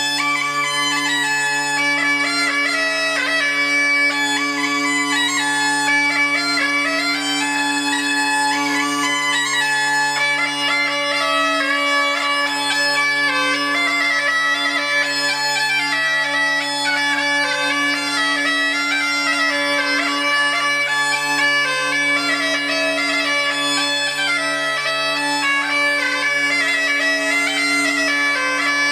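Bagpipes playing a tune: a moving chanter melody over two steady, unbroken drones.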